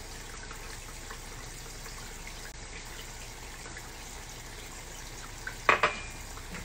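A ceramic mug set down on a hard countertop: two or three sharp knocks and a brief ring near the end, over a steady low hiss.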